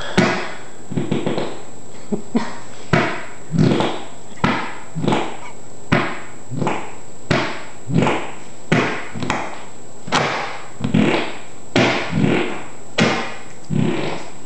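Fart-like squelching noises made by a boy's bare back pressing against and peeling off the floor. More than a dozen short squelches come in a steady run, about one every three-quarters of a second.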